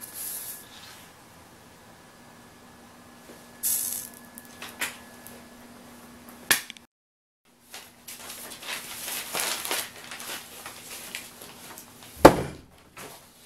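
Scattered knocks and clicks, then several seconds of paper rustling as sheets are handled, ending in one sharp thump near the end.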